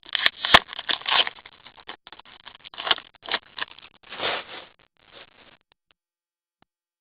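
Trading cards being handled and slid against one another: irregular rustling and scraping, with a sharp click about half a second in, dying away about five and a half seconds in.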